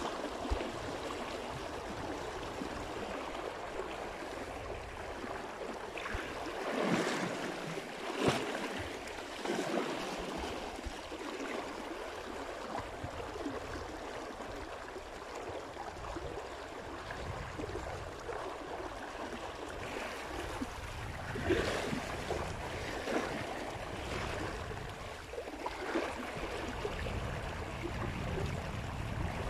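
A river running steadily over stones, with a few brief louder noises now and then.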